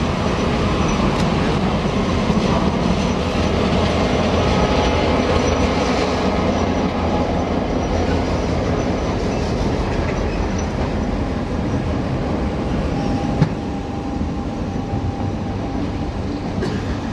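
NSW 422 class diesel-electric locomotive running as it draws slowly past, followed by passenger carriages rolling by with wheel clatter over the rail joints. A single sharp knock comes about thirteen seconds in.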